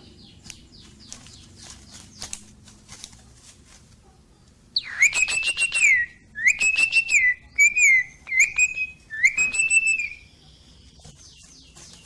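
Javan pied starling giving five loud, rasping whistled calls, each about a second long, from about five to ten seconds in. Soft clicks come before them.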